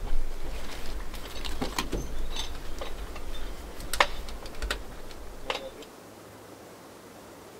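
Sharp clanks and knocks, about half a dozen, from hands-on work at the firebox of a Lombard steam log hauler's boiler while it is being fired up. A low rumble underneath stops suddenly near the end.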